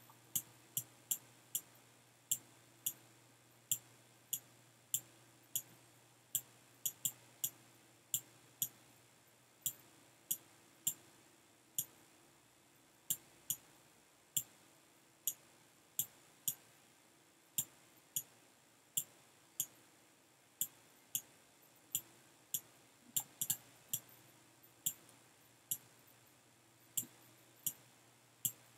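Computer mouse clicking, sharp single clicks at an irregular pace of about one to two a second with a few quick doubles, over a faint steady hum.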